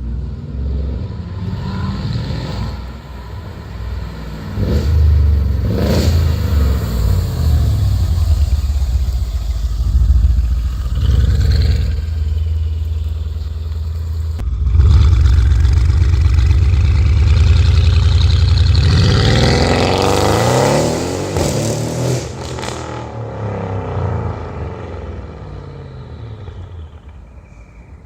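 Tuned Mercedes-AMG CLS63 S's twin-turbo V8 engine running hard and revving, loudest past the middle with pitch sweeps near two-thirds through, then falling away toward the end.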